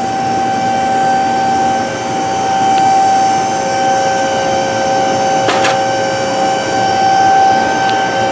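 Steady mechanical hum of running machinery with a constant whine, a second lower whine growing stronger about halfway through. A short sharp knock about five and a half seconds in.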